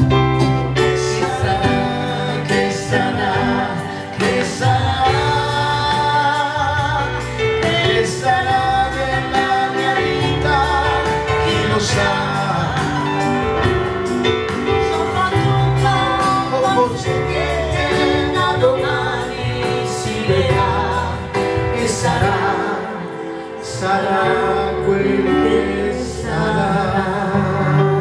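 Live band playing a pop song: electronic keyboard and guitar accompanying a woman and a man singing into microphones.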